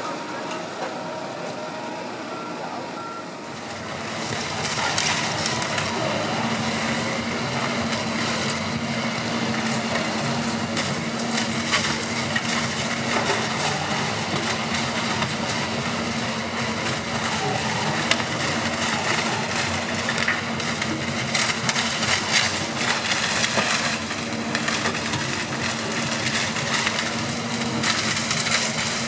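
For the first few seconds, a wheeled material handler driving, with a couple of steady tones. Then a wood shredder grinding wooden pallets, with a steady low drone from the diesel machinery and constant crackling and snapping of splintering wood.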